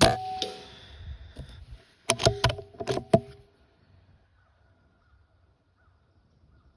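An airgun shot: a sharp crack with a metallic ring that fades over about a second and a half. About two seconds in comes a quick run of sharp metallic clicks and clanks that carry the same ring.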